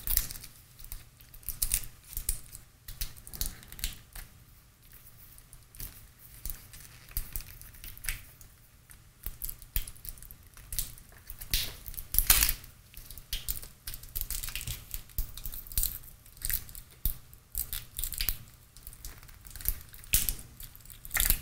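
Yellow insulating tape and paper being peeled and torn by hand off the windings of a small transformer from a UPS: irregular crackling and short ripping sounds, with louder rips about 8 and 12 seconds in and again near the end.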